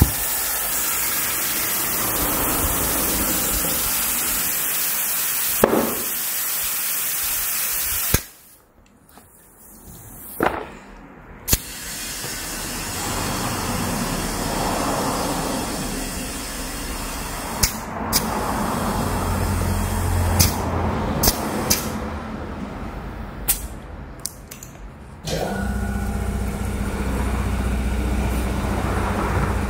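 Compressed air hissing steadily into a freshly mounted tyre through a gauge-equipped air chuck pressed onto the valve stem, cutting off suddenly about eight seconds in. A few sharp clicks follow during the quieter stretch, and near the end a low steady rumble starts up.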